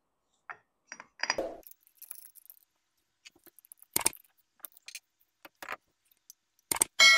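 Small metal clicks and clinks as a toothed wood-carving disc is fitted to an angle grinder and its flange nut is tightened with a pin spanner, with a sharp click about four seconds in. Near the end a piece of steel lands with a loud clang that keeps ringing.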